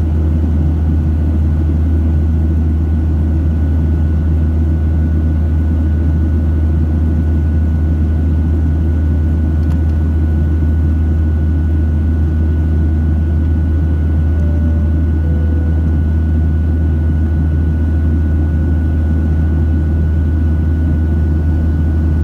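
Cabin noise of a Boeing 737-700 climbing, heard from a window seat beside the wing: its CFM56-7B turbofan engines and the airflow make a steady, loud low drone, with a thin steady whine above it.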